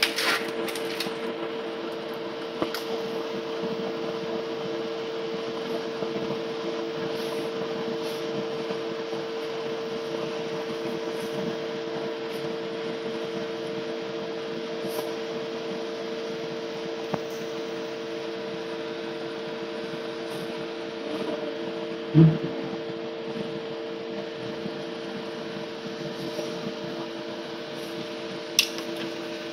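Steady hum of room machinery, several fixed tones held level throughout, with a few faint handling clicks and a brief low thump about 22 seconds in.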